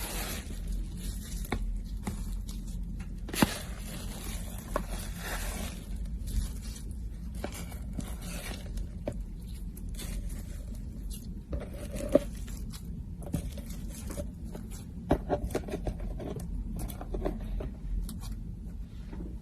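Hands working slime: scattered sticky clicks and pops over soft scraping and rustling, with a quick run of pops about three quarters of the way through.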